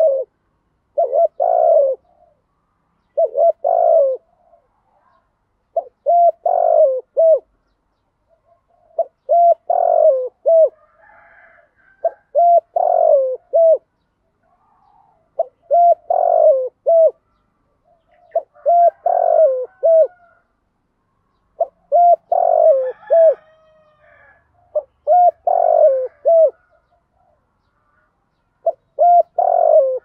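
Spotted dove cooing: phrases of a few coos, about every two to three seconds. This is a decoy bird calling to draw in wild doves.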